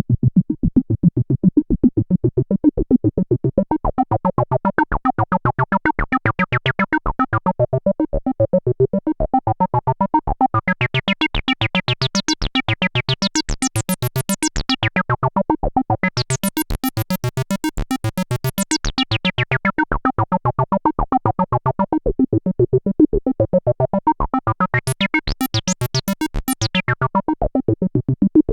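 Arturia MicroFreak synthesizer playing a sequenced acid bassline of fast, evenly repeated short notes. Its resonant filter is swept open and shut several times, so the line turns bright and squelchy, around the middle and again near the end, then dark and muffled again.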